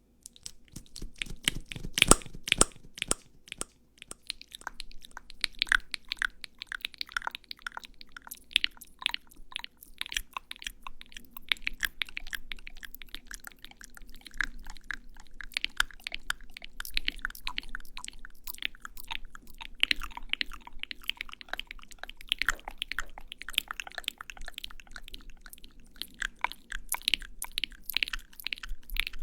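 Close-miked ASMR sound effects: dense, irregular crackling and clicking with a crunchy, chewing-like texture, loudest in a cluster of clicks about two seconds in.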